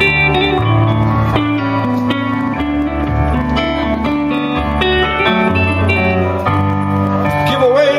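Gretsch hollow-body electric guitar played through an amplifier: an instrumental break of quick picked single notes over low bass notes, in a country-blues style.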